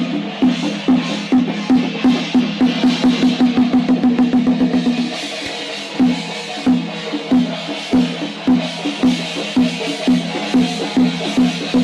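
Drumming on a pitched drum: steady strokes that quicken into a fast roll, break off about five seconds in, then start again at a slower beat, with a constant bright ringing above them.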